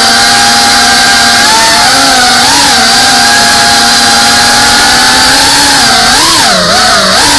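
FPV quadcopter's electric motors and propellers whining. The pitch holds steady, then dips and rises several times near the end as the throttle changes.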